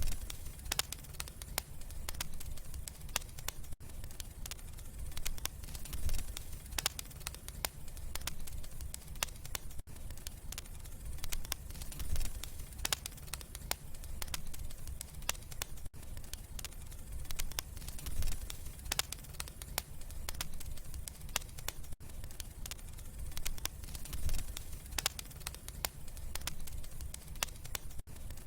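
Wood fire crackling in a fireplace: frequent irregular sharp pops and snaps over a steady low rumble of burning.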